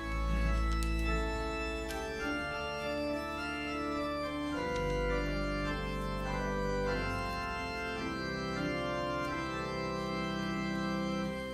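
Church organ playing a hymn introduction: held chords over a deep sustained bass, changing chord about four and a half seconds in and again near seven seconds.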